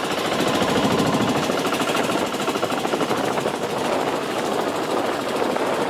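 Small wooden fishing boat's engine running steadily under way, with a rapid, even knocking beat.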